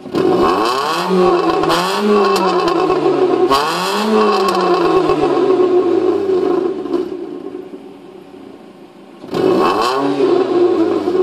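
Exhaust of a 2008 Proton Persona's CamPro S4PH four-cylinder, fitted with a 4-2-1 manifold, no catalytic converter and a straight-through first muffler, revved in three quick blips that then fall slowly back to idle. About a second before the end it is revved sharply again.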